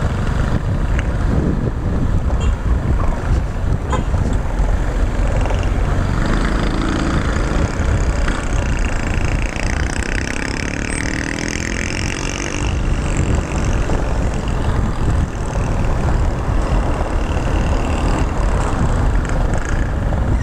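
Motor scooter being ridden through town traffic: steady wind rumble buffeting a helmet-mounted camera microphone, with the small engine running underneath.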